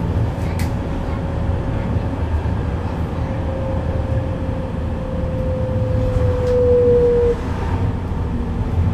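Duewag R1.1 low-floor tram heard from inside the passenger compartment: a low rumble of running gear with a traction drive whine that slowly falls in pitch and grows louder, then cuts off suddenly about seven seconds in, as the tram slows on the approach to its next stop.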